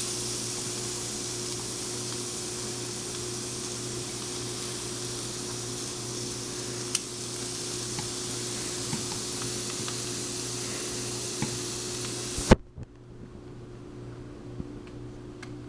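Chicken pieces sizzling steadily on a hot, oiled cast-iron grill pan, with a few light clicks. About twelve seconds in there is a sharp click and the sizzle cuts off suddenly, leaving only a quieter low hum.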